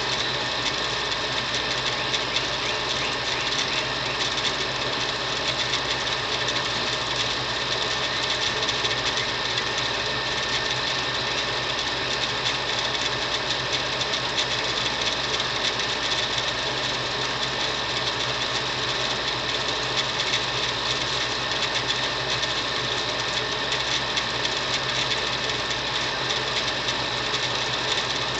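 A small motor running steadily: a constant whirring drone that does not change.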